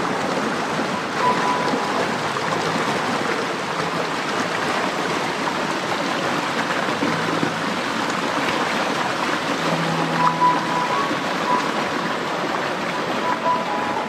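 Shallow, waterfall-fed stream running over rocks and small cascades, a steady, even rush of water.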